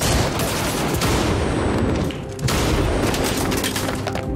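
Gunfire in a film shootout: many shots in rapid succession from several guns, with a short lull about two seconds in.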